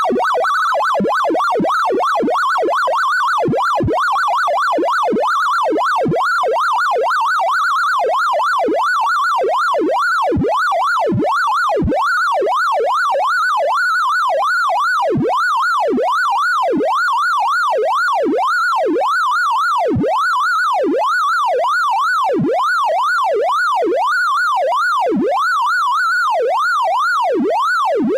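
Synthesized sorting-algorithm tones from a Gnome Sort visualization: one electronic tone sweeps rapidly down and back up over and over as elements are compared and swapped, its pitch tracking the values, like a warbling siren.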